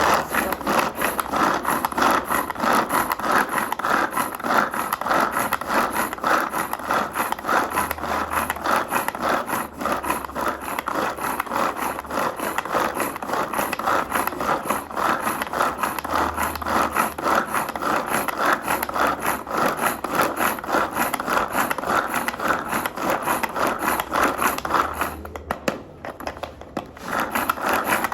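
Onions and hot pepper being ground up: a continuous rough grinding and scraping made of rapid strokes. It eases off briefly near the end, then resumes.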